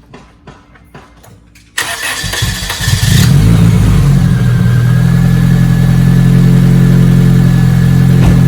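1993 Asuna Sunfire's 1.8-litre four-cylinder engine started: the starter cranks briefly about two seconds in, the engine catches within about a second, and it settles into a steady idle. The engine has a freshly cleaned throttle body and serviced spark plugs.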